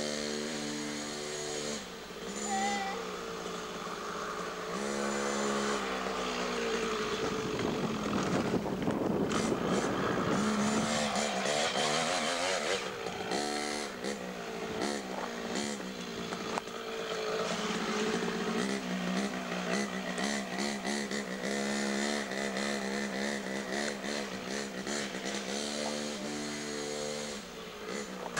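Beta 50cc two-stroke minitrial motorcycle engine revving up and down over and over as it is ridden over rough ground, with a stretch of water splashing partway through as the bike crosses a stream.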